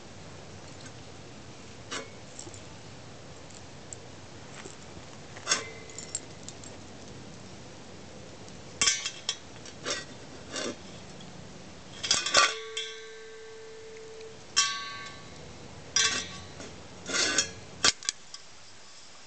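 A dish being knocked and pushed about on concrete by a dog: irregular clanks and clinks, clustered in the second half, the loudest a little past the middle, several of them leaving the dish ringing for a second or two.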